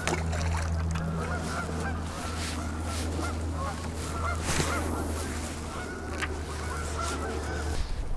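A large flock of geese honking continuously, many short overlapping calls, over a steady low hum that stops near the end.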